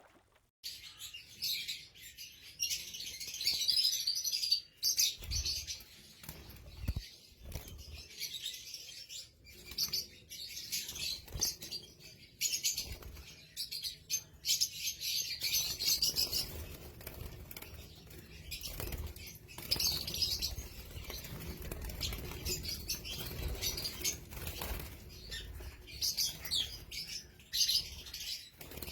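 Lovebirds chattering: irregular bursts of high-pitched twittering and squeaks, with a few low thumps and rustles among them.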